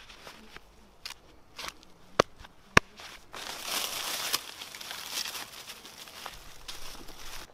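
Two sharp snaps a little over two seconds in, then dry leaves and twigs crackling and rustling as gloved hands gather sticks from the leaf litter.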